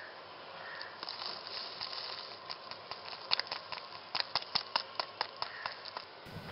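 Foil instant-coffee sachet crinkling as it is tipped, then coffee granules pattering into a ceramic mug as a quick run of small sharp ticks from about three seconds in.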